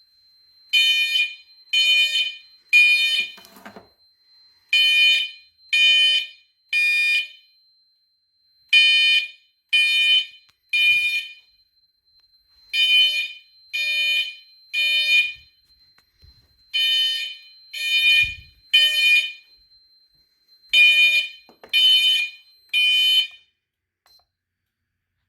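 Fire alarm horn sounding a pitched electronic tone in the temporal-three evacuation code: three blasts, a pause, then repeated, six rounds in all. The rhythm signals the panel in alarm from an activated smoke detector. A faint steady high tone runs under the blasts and stops shortly before the last round.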